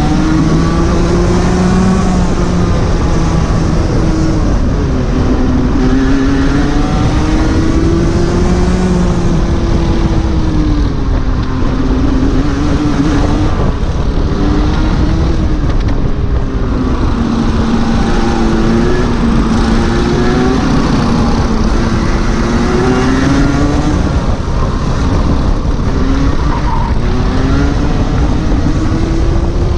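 Rotax 125 Junior Max Evo single-cylinder two-stroke kart engine on a flying lap. Its pitch climbs as it revs out, then drops back, over and over through the corners, with a steady rush of noise underneath.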